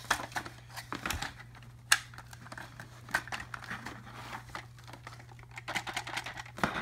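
Plastic clicks and knocks of a toy foam-dart blaster being handled, its catches and buttons pressed while trying to release the magazine. One sharp click about two seconds in is the loudest.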